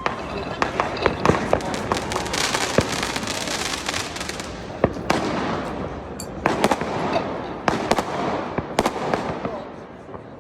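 Fireworks going off: many sharp bangs, some in quick runs and some single, over a continuous crackle.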